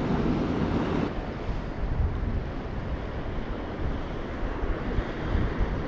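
Wind buffeting the microphone over the wash of ocean surf against jetty rocks, a steady rushing noise with low gusty rumbles.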